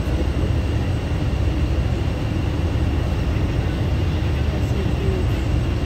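Steady low rumble on board a moving cargo ferry under way, from its engines and the air rushing over the deck.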